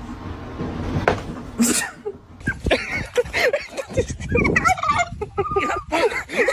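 Poultry calling: a run of rapid, warbling calls that starts about two and a half seconds in, after a noisy stretch with a couple of sharp knocks.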